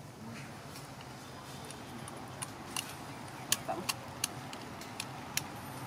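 Outdoor background with a steady low hum, broken from about halfway through by a dozen or so scattered sharp clicks and ticks.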